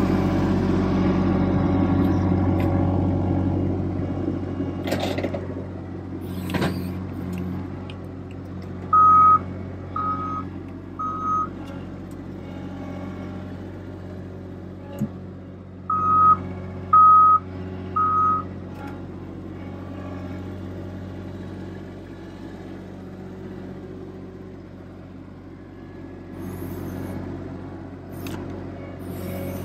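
Avant 528 compact loader's diesel engine running, loudest at first and easing down after a few seconds. A backup alarm beeps in two runs of three short beeps, about one a second, around the middle.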